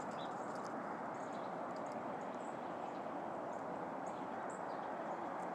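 Steady outdoor background noise with faint, scattered high chirps of small songbirds.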